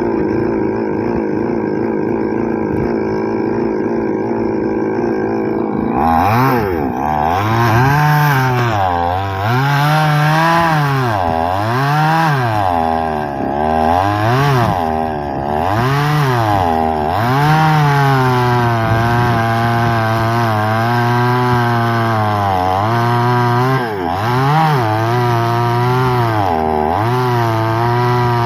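A 6000-model two-stroke chainsaw running at a steady speed, then from about six seconds in its engine pitch rises and falls over and over as it works through the cut in the tree.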